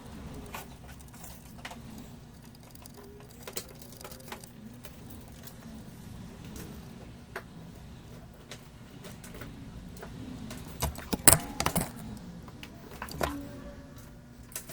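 Soldering tools clicking and tapping against a PS5 board while its HDMI port is being reworked, over a steady low hum; a quick cluster of louder clicks comes about three-quarters of the way through.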